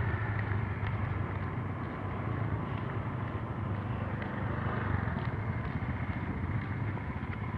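Car and motorcycle engines running in slow, crowded traffic, a steady low hum.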